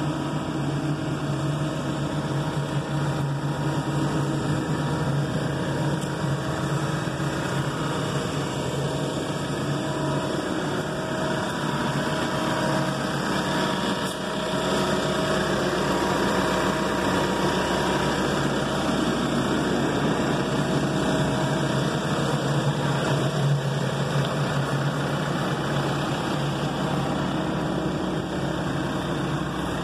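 Case 580ST backhoe loader's diesel engine idling steadily, heard up close.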